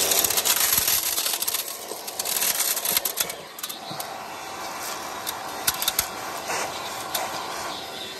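Irregular clicks and small rattles of hands working on a truck's door panel, pulling plastic trim and loose pieces of shattered window glass.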